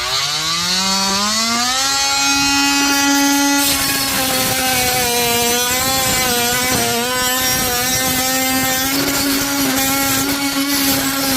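Reciprocating saw with a bimetal blade starting up, its motor whine rising over the first two seconds, then cutting through steel panel screws: a steady whine with a rasping cutting noise from about four seconds in.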